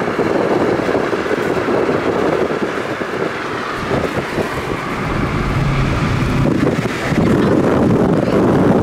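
Wind buffeting the microphone over the road noise of a moving vehicle, growing louder about seven seconds in.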